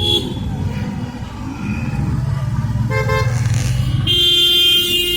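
Car engines running in slow street traffic, with car horns honking: a short toot about three seconds in and a longer honk near the end.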